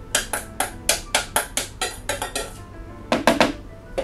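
A utensil tapping and knocking against a stainless steel mixing bowl to shake the last loose egg yolk crumbs out, quick sharp clicks about four or five a second, then a short pause and a few louder knocks near the end.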